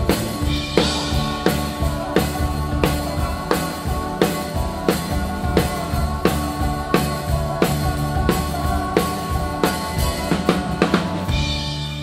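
Drum kit played with sticks in a steady beat on snare and bass drum with cymbals. The drumming stops about a second before the end, leaving a low note ringing on.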